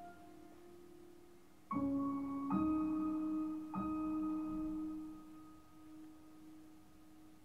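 Film score music: slow, piano-like single notes, one struck about two seconds in, a higher one just after, and that higher note struck again about a second later, each ringing on and fading away. Recorded through a smartphone microphone.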